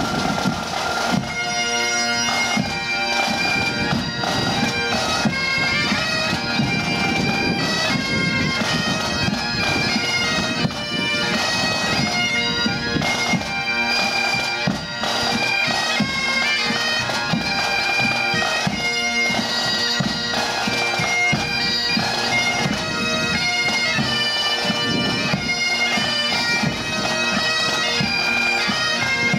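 Great Highland bagpipes of a pipe band playing a tune, the melody moving from note to note over steady, unbroken drones.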